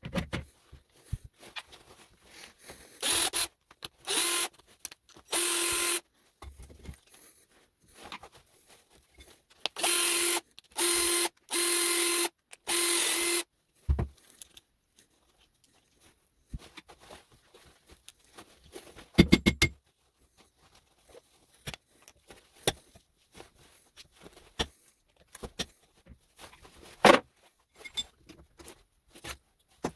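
A small electric power tool runs in short bursts at a steady pitch, about seven times over ten seconds, while small metal connector parts are taken apart. Scattered clicks and clinks of small metal pieces come between and after the bursts.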